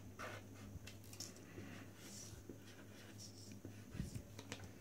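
Chisel-tip felt marker drawing on card: faint, short rubbing strokes about a second apart.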